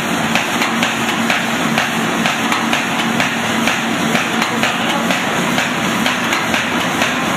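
Automatic roll-fed paper bag making machine running at speed, its mechanism clacking rapidly and regularly several times a second over a steady motor hum.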